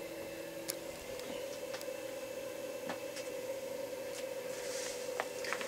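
Quiet room tone: a faint steady hum with a few light, scattered clicks.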